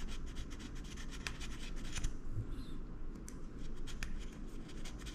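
A small metal earring scraped back and forth on a black testing stone (touchstone): a run of short, irregular scratches. These are streak marks being laid down for a gold acid test.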